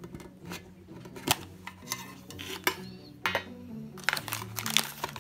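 Metal tins of Seresto flea collars being opened by hand: the tear strip is pulled from the rim and the lid is lifted off. There are irregular sharp clicks, scrapes and clinks of thin metal, busiest near the end.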